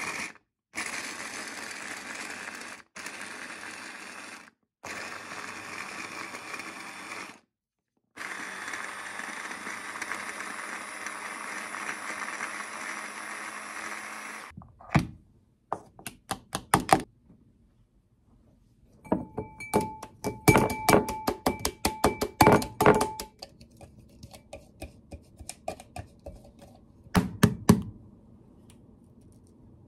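Electric food processor chopping carrots, its motor run in several bursts, the last and longest about six seconds, then stopping about halfway through. After it come clicks and knocks, some sharp, as the chopped carrot is emptied into a glass bowl.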